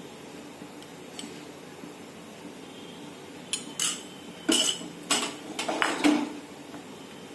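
Metal cookware clanking: a pan and metal utensils being handled, with a quick run of about six clinks and knocks over two and a half seconds, starting a few seconds in.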